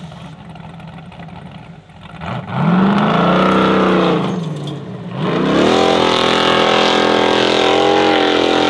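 Formula Offroad car's engine at the start line: a low run, then revs rise sharply about two seconds in and hold, dip briefly, and climb again to a high, steady pitch as the car sets off up the course.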